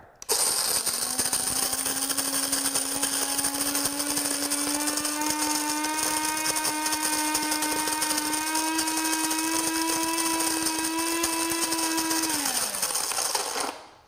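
Cuisinart DBM-8 Supreme Grind burr mill grinding coffee beans on a medium setting: a steady electric motor whine over a hissing grind, its pitch creeping slowly upward. About twelve seconds in, the motor shuts off on its own once the set amount is ground and winds down.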